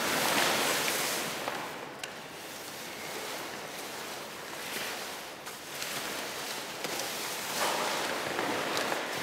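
Large sheets of paper rustling and crinkling as a dancer moves inside them, swelling and fading in slow waves.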